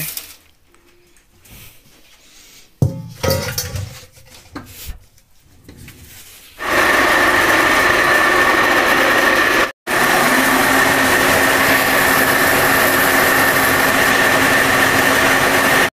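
Electric household flour mill (chakki) running and grinding dal into besan flour: a loud, steady grinding hum that sets in about six and a half seconds in. Before it there are a few handling knocks.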